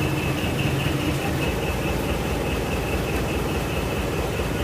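Mini dump truck's engine idling steadily, with a high tone pulsing about four times a second that fades out about halfway through.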